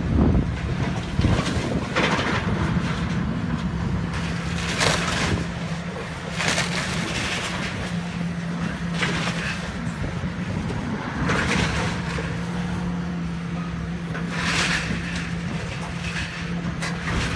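Hitachi hydraulic excavator's diesel engine running steadily during demolition, with about five crunches and crashes of breaking wood and debris as the machine pulls the building down.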